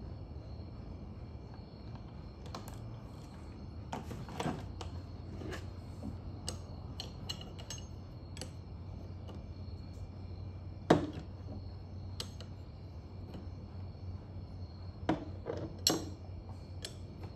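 Scattered metallic clicks and clinks from a ratchet wrench turning the press screw of a Kuntech KT-3209 timing chain tool, pressing a pin out of a double-row timing chain link. One sharp knock comes about eleven seconds in and a few more near the end, over a steady low hum.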